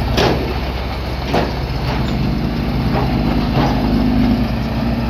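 Heavy-equipment diesel engine running steadily, with several sharp metallic clanks over it.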